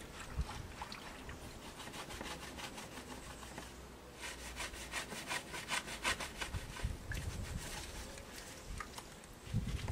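Rapid, even scraping strokes, about five a second, loudest for about three seconds from about four seconds in, with fainter strokes before.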